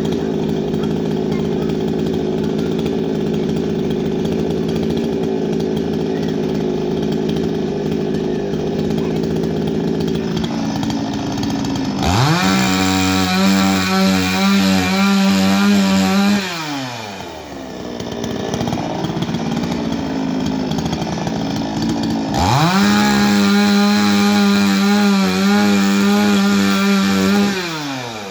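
Two-stroke chainsaw engine running steadily, then revved up hard twice, about 12 and 22 seconds in, each time held high for about five seconds before dropping back to a lower speed.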